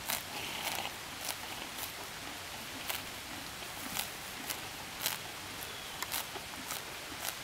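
Horse grazing: short, crisp rips of grass torn off by the teeth, irregular, about two a second.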